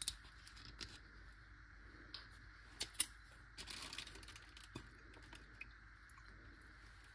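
Faint clicks and light handling noises of bottles and a plastic zip-top bag as vinegar is added to a marinade, with two sharper clicks about three seconds in.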